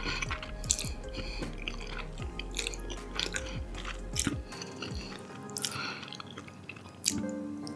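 Close-up wet eating sounds of a person slurping and chewing spaghetti and meatballs in tomato sauce: many short smacking clicks, with quiet background music underneath.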